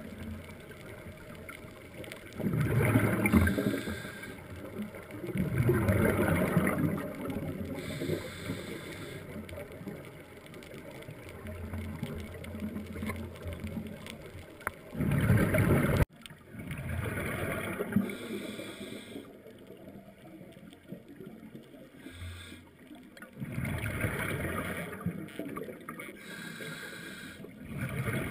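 Scuba diver's regulator breathing underwater: bursts of exhaled bubbles gurgling past the camera every few seconds, over a steady underwater wash.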